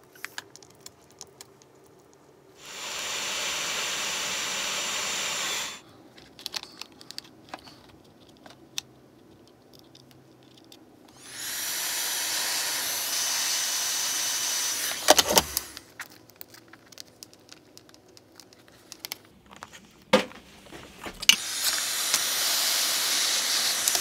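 Hot air gun blowing in three spells of a few seconds each, a steady rushing hiss with a thin fan whine, shrinking heat-shrink tubing over soldered wires on a toggle switch's pins. Light clicks and handling knocks come between the spells, and the last spell starts near the end and is still running when the clip ends.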